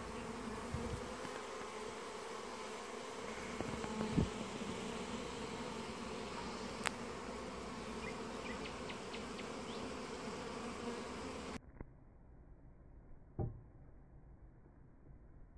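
Many honeybees buzzing around their hives, a steady dense hum, with a low thump about four seconds in. About three-quarters of the way through, the sound cuts abruptly to a much quieter, muffled level.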